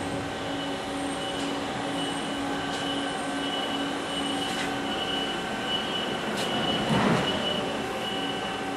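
HAAS SL-30T CNC lathe running: a steady machine whine made of several held tones, with a few light ticks and a louder rushing burst about seven seconds in.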